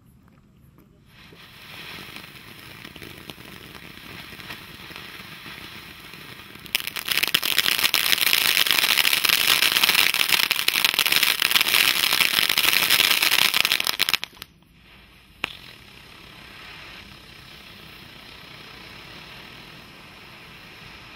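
Ground fountain firework 'The Scrambler' spraying sparks: a hiss begins after about a second and a half, and about 7 s in it becomes a loud, dense crackle lasting some seven seconds. It then drops back to a steady, quieter hiss, with a single sharp pop a little after that.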